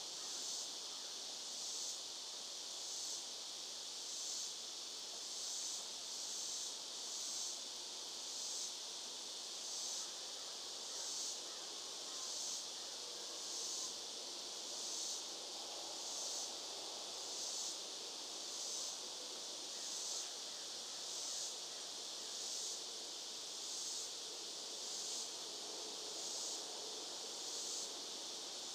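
Insects outdoors in the sun, buzzing in a high-pitched chorus that swells and fades evenly about once a second.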